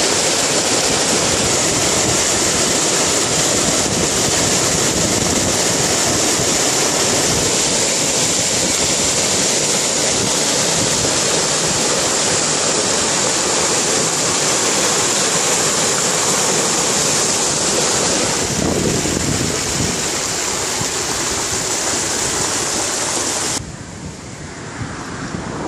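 Swollen floodwater rushing through a sluice in a brick-walled channel and along a stream in spate, a loud steady rush of water. Near the end it drops suddenly to a quieter, gentler rush.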